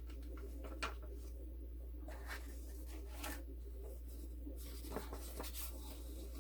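Sheets of craft paper being handled and shuffled. Scattered light rustles and sliding sounds, with a sharp little tap about a second in, over a steady low hum.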